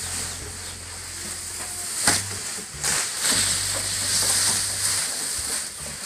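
Armfuls of fresh leafy fodder rustling and crackling as they are pushed into a wooden goat feeding trough, with sharper snaps about two and about three seconds in.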